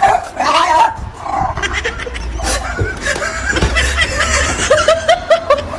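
A dog making high whining and yelping calls that bend in pitch, ending in a quick run of about six short yelps near the end.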